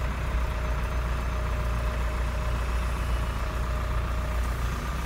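Engine of a truck running steadily at low speed, heard from inside the cab as a low, even drone.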